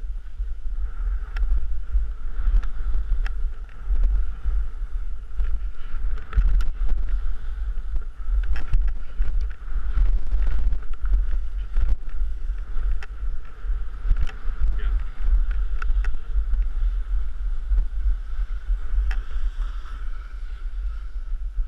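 Wind buffeting the microphone of a camera riding fast down a groomed ski run, a heavy gusting rumble, with the scrape and hiss of edges sliding over packed snow.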